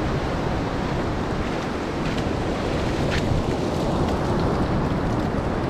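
Ocean surf breaking and washing up a sandy beach in a steady rush, with wind on the microphone.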